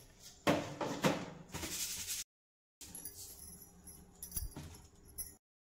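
Handfuls of dry cumin seeds dropped into a steel kadai of coriander seeds, a few short rattling rushes in the first two seconds. After a brief dropout come faint small clicks and rustles.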